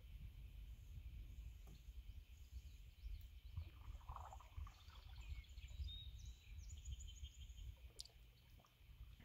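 Faint natural ambience of small birds chirping and trilling in the distance, busiest in the middle, over a low steady rumble.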